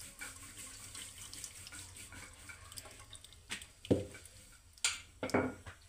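Hot water with ghee residue (chhiddi) being poured from a steel pan through a small steel mesh strainer into a steel tin, a steady trickling splash that strains out the browned residue. A few short knocks come in the second half.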